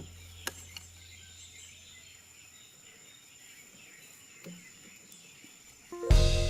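Faint outdoor ambience after a few sharp taps in the first second; background music with plucked notes comes in loudly near the end.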